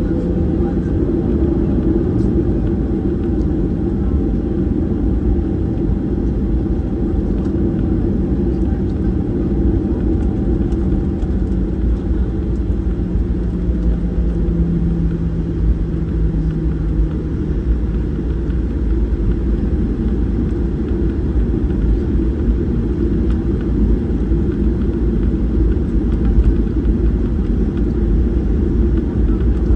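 Boeing 737-800's CFM56 engines and airflow making a steady low rumble, with a faint hum that dips slightly in pitch about halfway through.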